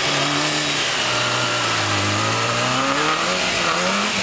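Lifted Suzuki Jimny's engine working under load as it crawls through snow and mud. The revs dip about a second in, then climb steadily to a higher pitch near the end, over a constant noise of the tyres churning.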